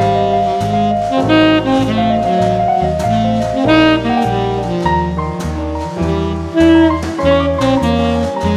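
Instrumental jazz background music: a saxophone melody over a moving bass line and drums.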